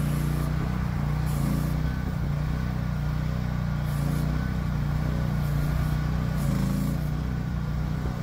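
Mini excavator's Briggs & Stratton 13.5 HP single-cylinder gas engine running steadily, its note wavering slightly as the hydraulics work the boom and arm.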